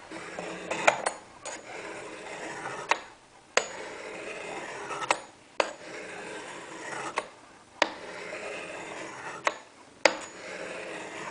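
Steel knife blade scraped along the coarse ceramic rods of a Sharpmaker laid flat in its base, in about five long strokes of a second and a half or so each, with a sharp click as each stroke starts or ends. The strokes are grinding a rounded-off tip flat on one side to bring it back to a point.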